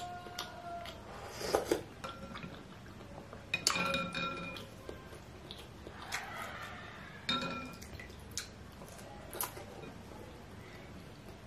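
Cutlery clinking against a ceramic bowl and plate while bakso meatballs are eaten, a few sharp clinks with brief ringing about four and seven seconds in, amid mouth sounds of eating.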